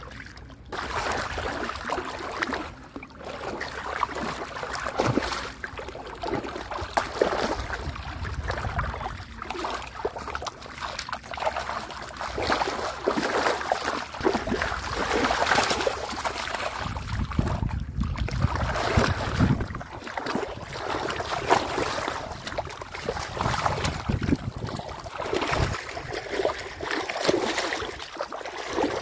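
Irregular splashing and sloshing of shallow muddy water as hands grab at fish and the fish struggle in it.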